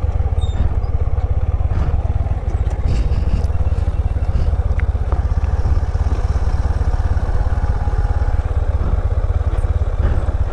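TVS Apache RTR 160 4V motorcycle being ridden, its single-cylinder engine running steadily under a heavy, fluttering low rumble of wind on the microphone.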